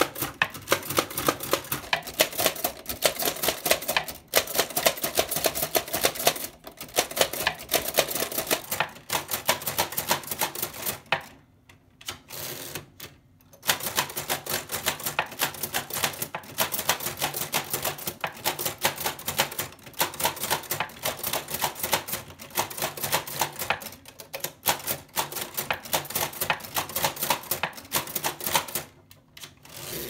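1890s Chicago No. 1 typewriter being typed on fast: a rapid run of sharp clicks as its hammer strikes the paper against the rotating cylindrical type element. The typing is broken by a few short pauses, the longest about eleven to thirteen seconds in.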